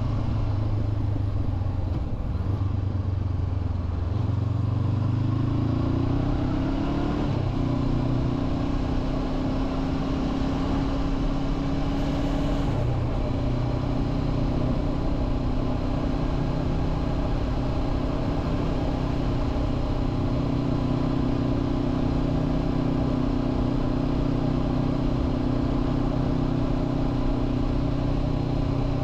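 Onboard sound of a 2023 Honda CB500F's parallel-twin engine under way, rising in pitch as it accelerates, then dropping sharply at an upshift about seven seconds in. After that it runs at a steady cruising pitch.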